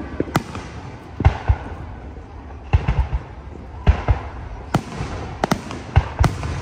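Aerial firework shells bursting overhead: over a dozen sharp booms at irregular intervals, several coming in quick succession around the middle and again near the end.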